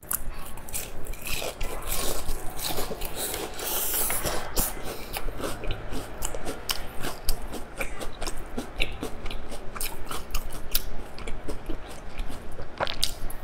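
Close-miked chewing and crunching of a flaky, sesame-rimmed pastry, a dense run of small crisp crackles.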